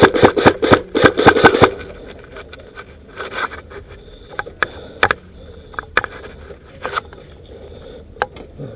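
A rapid run of about a dozen loud, sharp clacks in the first second and a half, then scattered single clicks.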